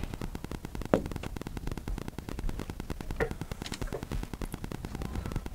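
Steady crackly static-like hiss of room and microphone noise, with one sharp click about a second in and two faint ticks later.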